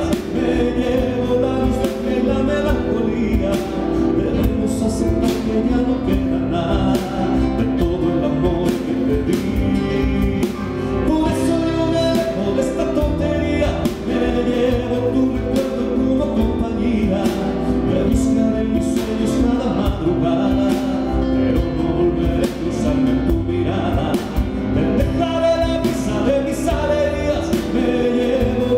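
Live music: a male singer performing a song with instrumental backing, piano among it.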